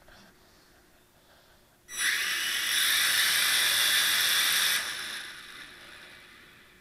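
Dromida Ominus quadcopter's small electric motors and propellers spinning up suddenly about two seconds in, running with a steady high whine for about three seconds, then winding down and fading away: a test run after the left rear motor was replaced.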